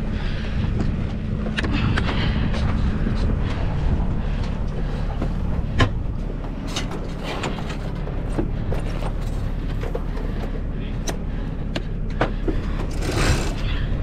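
A sailing yacht's inboard engine running steadily while motoring, a constant low drone. Scattered clicks and knocks sit over it as hands work along the deck and the sail cover, the sharpest about six seconds in.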